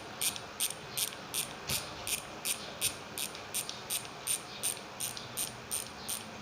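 Freehub of a Fovno Ghost rear bicycle hub clicking in an even rhythm, about three sharp clicks a second, as its pawls ratchet during a sound check. The click is sharp and high-pitched.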